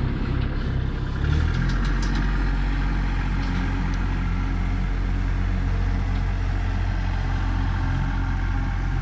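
Excavator's diesel engine running steadily at idle, its low hum growing a little louder about a second in.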